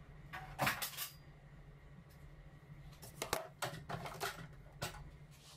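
Scattered clicks and knocks from handling the plastic and metal parts of a ring light tripod stand as it is fitted together: a cluster about half a second in, then several more from about three to five seconds in.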